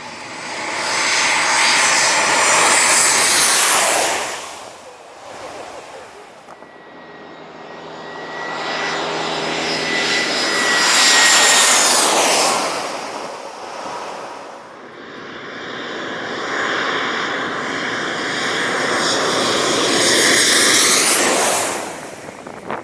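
Jet airliner engines passing low and loud, in three swells that rise and fade, each carrying a high whine over a rushing noise.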